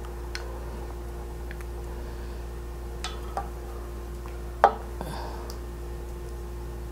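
Chopsticks clinking against a small dish and the pan as pieces of simmered daikon and chicken are served: a few light clicks, with one sharper, louder clink about two-thirds of the way through.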